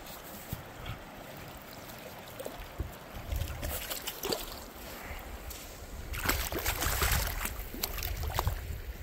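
Splashing in shallow river water at the bank, heaviest about six to seven seconds in, with scattered knocks and low rumble from the phone being handled.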